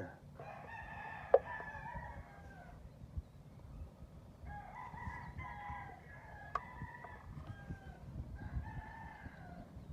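A rooster crowing, three long calls, with a sharp click about a second in and another in the middle.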